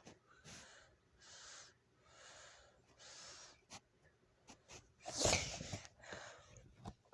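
A person sniffing through the nose in short airy puffs about once a second, acting out a puppet searching for food, with one louder, harsher breath about five seconds in.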